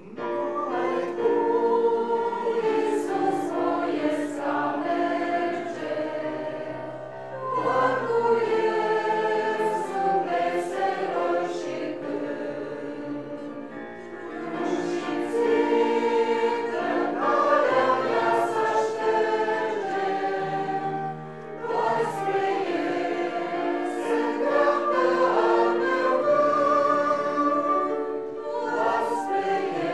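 Church congregation singing a hymn together in held, sustained notes, in sung lines with short breaks between them.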